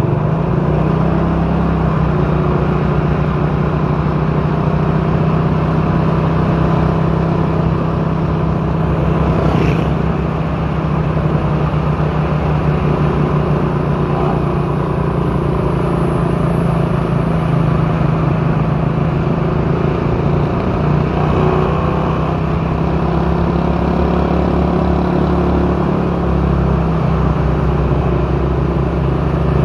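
Motor vehicle engine running at a steady pitch while climbing a hill road, a low even drone over road noise.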